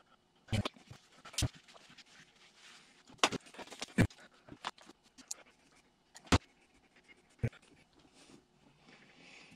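Handling noise from working grease into a driveshaft center support bearing: about half a dozen sharp clicks and light knocks, irregularly spaced, with faint rustling between them.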